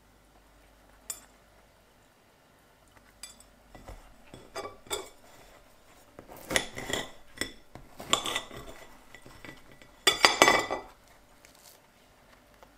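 A knife cutting through a glazed French cruller on a plate, its blade scraping and clinking against the plate in a run of irregular bursts that grow louder, loudest near the end.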